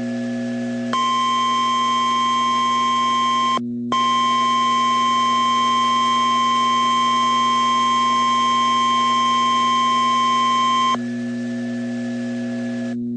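NOAA Weather Radio warning alarm tone: a single steady 1050 Hz beep that starts about a second in, drops out for a moment near four seconds, and runs on until about eleven seconds. It is the alert that announces an urgent warning, here a tornado warning. Before and after the tone there is a low steady hum from the radio.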